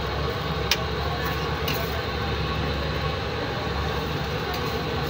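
Metal spatula scraping and tapping on a flat steel griddle while eggs are worked on it. There are sharp clanks under a second in and about a second later, over a steady low rumbling din.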